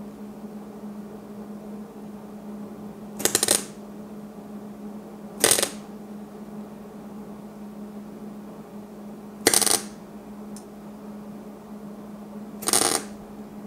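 Welder striking four short tack welds on the sheet-metal air cleaner base, each a brief crackling buzz under half a second, spaced a few seconds apart over a steady low hum.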